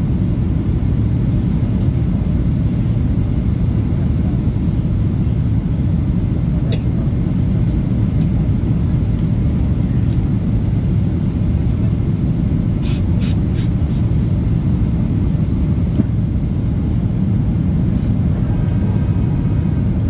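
Jet airliner cabin noise on approach to land: a steady, loud, low rumble of engines and airflow through the fuselage, with a few faint clicks.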